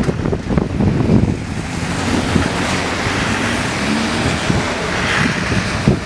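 Wind buffeting the microphone in low gusts, strongest in the first couple of seconds. A steadier hiss fills the middle seconds, typical of car tyres passing on the wet, slushy road.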